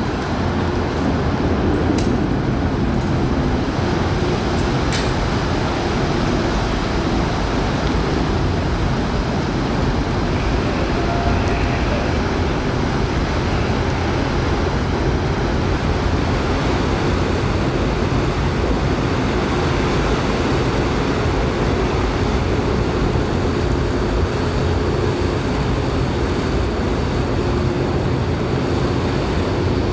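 Car ferry's engines and propellers running steadily as it pulls away from the dock: a continuous deep rumble with a steady hum over churning propeller wash.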